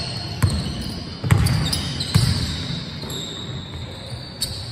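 Basketball being dribbled on a wooden sports-hall court: a few separate bounces, about a second apart early on and one more near the end, echoing in the large hall.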